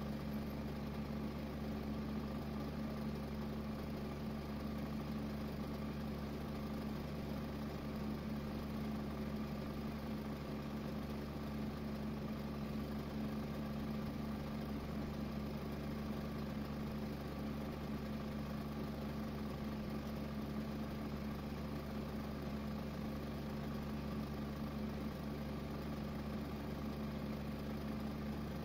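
A steady mechanical hum with a low drone that does not change.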